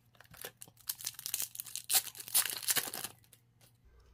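A hockey trading-card pack wrapper being torn open and crinkled by hand: a run of crackling and tearing noises, loudest about two to three seconds in, dying away near the end.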